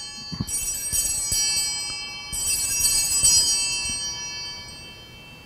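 Altar bells (a cluster of sanctus bells) shaken in peals at the elevation of the chalice during the consecration, with fresh peals about half a second and about two seconds in, each ringing on and fading out near the end.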